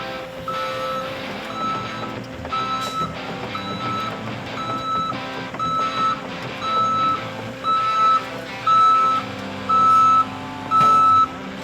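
Backup alarm on heavy equipment beeping about once a second, growing louder through the second half, with an engine running underneath.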